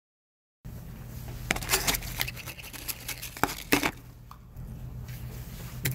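Silence, then room sound cuts in about half a second in: a steady low hum with a few sharp, irregular clicks and knocks and some rustling, the noise of things being handled and someone moving about in a small room.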